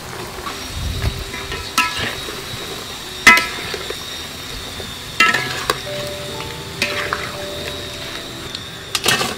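Chunks of taro bubbling in a wok while a metal ladle and wire skimmer scoop them out, clinking against the aluminium wok about six times. The loudest clink comes about a third of the way in and two come close together near the end.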